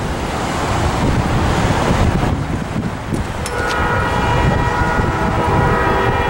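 Wind buffeting the microphone, with a departing train rumbling underneath. About three and a half seconds in, a distant diesel locomotive air horn starts one long, steady multi-note chord.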